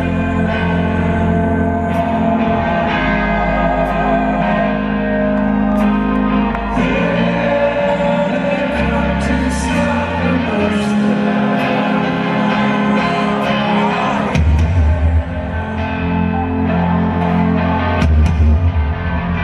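Live rock band playing loudly: sung vocals over electric guitar and drums, recorded from among the audience in a concert hall.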